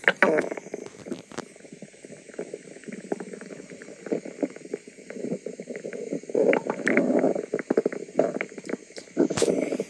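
A person's stomach gurgling and rumbling: irregular wet bubbling gurgles and crackles that swell louder for a couple of seconds about halfway through and again near the end.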